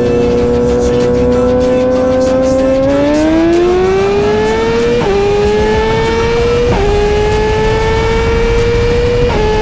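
Superbike engine at high revs accelerating hard through the gears. The pitch climbs steadily and drops sharply at three quick upshifts, about five, seven and nine seconds in.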